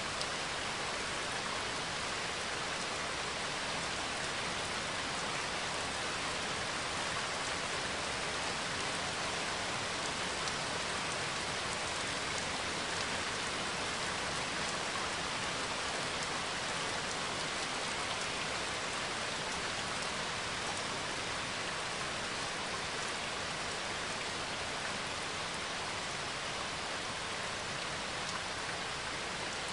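Steady rain: an even, unbroken hiss of falling rain, from a recorded rain track.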